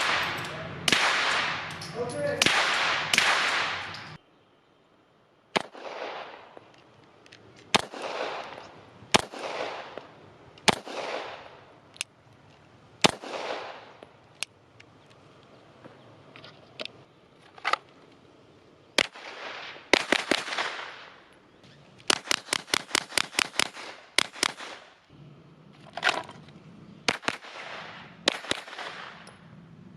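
Glock 17L 9mm pistol firing on a range. It opens with a few seconds of loud shots. After a short pause come single shots a second or two apart, then a rapid string of about a dozen shots in roughly two seconds, then more single shots.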